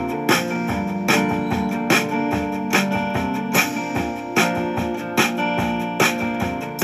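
Background music with a steady beat, led by guitar with keyboard.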